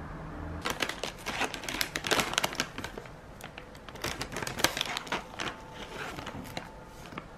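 A stand-up plastic snack bag of chocolate pretzels crinkling and rustling as it is handled and opened by hand. The crinkling starts just under a second in and is densest for the next few seconds, then thins to occasional rustles.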